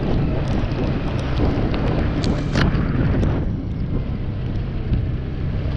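Wind rushing over a helmet-mounted microphone on a moving Honda PCX scooter, with the scooter's single-cylinder engine and tyres on the wet road running underneath. The rush eases a little just past halfway.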